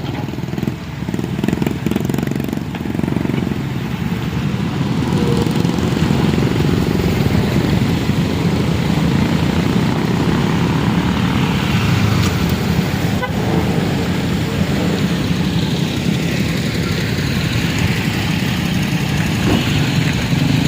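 Motor vehicle engines running steadily: a continuous low rumble that grows a little louder about five seconds in.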